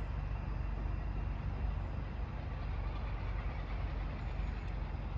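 Class 46 diesel locomotive's Sulzer twin-bank diesel engine running steadily, a constant low rumble.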